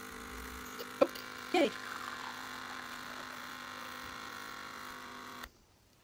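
De'Longhi espresso machine's pump running with a steady buzzing hum as it brews a shot into the cup, cutting off suddenly about five and a half seconds in. A sharp click about a second in and a short voice-like sound just after.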